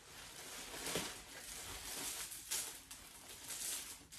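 Soft, irregular rustling of a shiny blue bag being handled while its red drawstring is worked loose.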